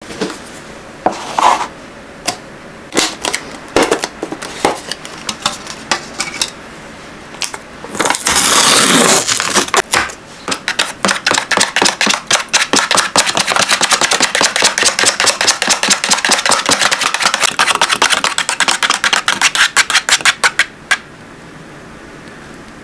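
Clicks and knocks from a plastic yogurt carton and its lid being handled, then a loud rustle lasting about a second and a half. After that, a small wire whisk stirs thick yogurt in its plastic carton, clicking rapidly and steadily against the sides for about ten seconds and stopping near the end.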